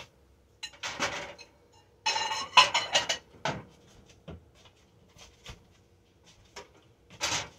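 Kitchen oven being opened and a plate of pancakes put inside to keep warm: a series of clatters and scrapes, the loudest a ringing metallic rattle about two seconds in, then a click, and a short noisy clunk near the end as the door is shut.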